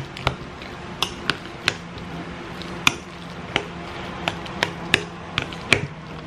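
A utensil knocking and scraping against a bowl while mashing and mixing cooked potatoes with milk: about a dozen sharp, irregular clacks over a faint steady hum.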